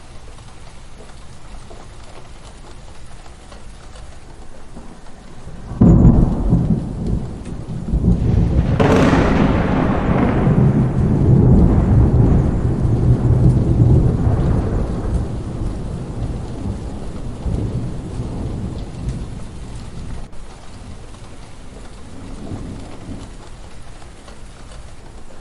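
Steady heavy rain with thunder: a sudden low rumble about six seconds in, then a sharp crack a few seconds later that rolls on for several seconds and slowly fades, with a softer rumble near the end.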